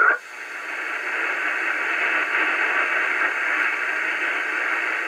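Receiver static hiss from a Cobra 2000 GTL CB radio on lower sideband: open band noise with no station transmitting. It swells up over about the first second, then holds steady.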